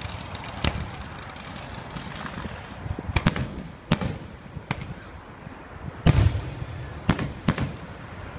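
Distant aerial fireworks: a string of about seven sharp shell bursts, each with a trailing echo, the loudest about six seconds in, over a steady rumble of crackling from the display.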